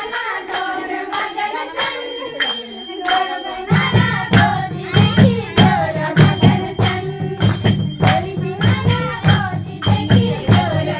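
Voices singing a Kumaoni Holi song over a steady beat of jingling hand percussion, about three strokes a second. A low drum comes in about four seconds in.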